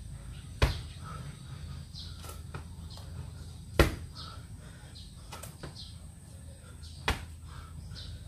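Three thuds about three seconds apart, the steady rhythm of a person doing burpees on the floor. Short bird chirps sound in the background over a low steady hum.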